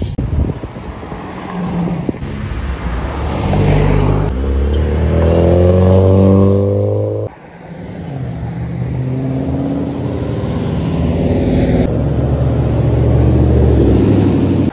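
Car engines revving as cars accelerate away, each pull rising in pitch over a few seconds. The first stops abruptly about seven seconds in, and another engine climbs steadily until the end.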